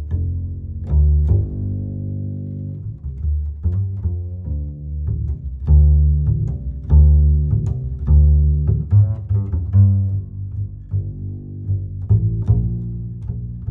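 Background music led by low strings, mixing plucked notes with held bowed notes.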